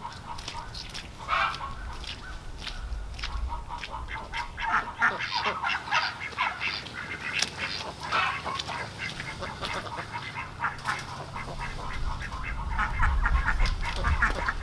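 A flock of domestic ducks quacking over and over, many short calls overlapping.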